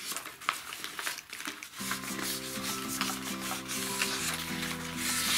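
A sheet of paper rustling and rubbing as it is folded by hand. Soft background music comes in about two seconds in.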